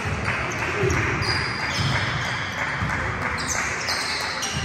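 Basketball game on an indoor court: a ball bouncing on the floor and sneakers squeaking in short, high chirps, over a steady murmur of voices in a large, echoing hall.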